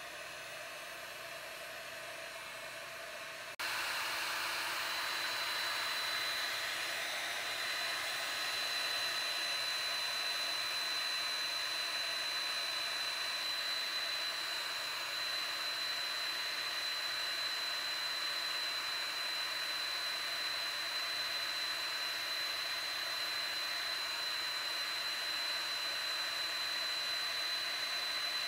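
Heat gun blowing hot air onto a solder-sleeve heat-shrink connector: a steady rushing of air. About three and a half seconds in it suddenly gets louder, and a thin, steady high whine joins it.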